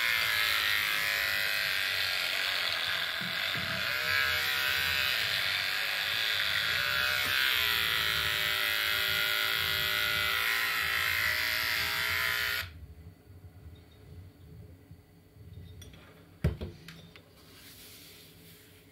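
Electric hair clippers buzzing steadily, their pitch dipping briefly about eight seconds in, then switched off abruptly about thirteen seconds in. A single sharp knock follows a few seconds later.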